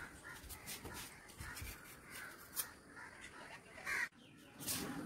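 Crows cawing among scattered soft scuffs of bare feet on a concrete floor; the sound breaks off abruptly about four seconds in.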